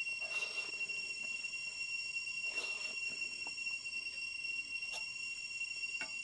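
Hand-eating of rice and noodles, with a couple of soft chewing and mouth sounds and a few faint clicks near the end, over a steady high-pitched insect drone.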